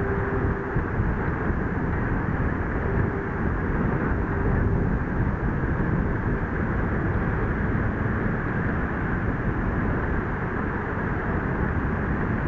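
Steady rushing of wind buffeting the microphone, mixed with small waves washing in around the wading crew and hull.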